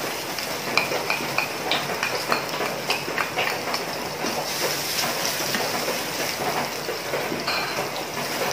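Chopped garlic sizzling in hot cooking oil in a non-stick frying pan, with many small crackles, as it is stirred around with a spatula; the garlic is being toasted.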